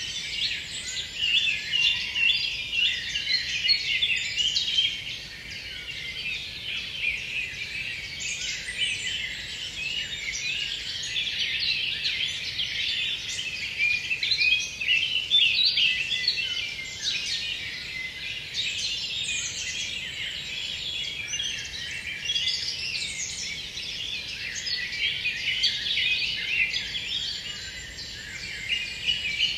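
Dense dusk chorus of many songbirds singing at once, a continuous tangle of short, high, overlapping notes with no pause.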